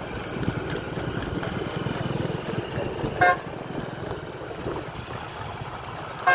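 Two short vehicle horn toots, about three seconds apart, over a steady low rumble of vehicle engines.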